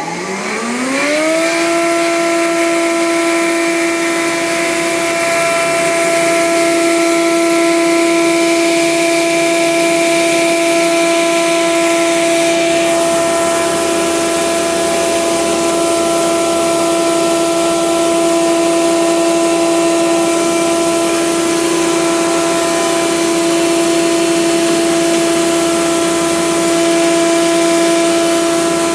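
Delta RC51 20-inch planer with its 5 HP motor and four-knife cutterhead coming up to speed. Its whine rises in pitch over the first second or so, then the machine runs steadily at full speed.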